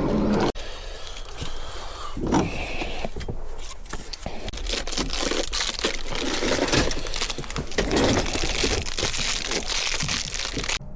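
Plastic car key fob being handled and worked on by hand: irregular clicks, snaps and crackling rustle, stopping abruptly near the end.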